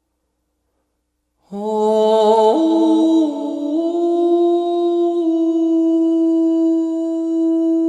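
After about a second and a half of silence, a solo voice begins singing, stepping up through a few notes and then holding one long steady note.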